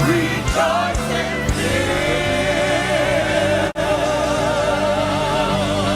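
Live gospel worship music: voices singing over a band, with a long held melody note wavering in vibrato from about a third of the way in. The sound drops out for a split second about two-thirds through.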